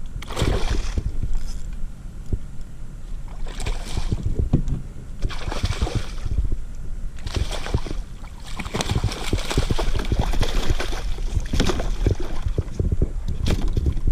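Water splashing and sloshing around a plastic kayak in uneven spells, with dull knocks against the hull.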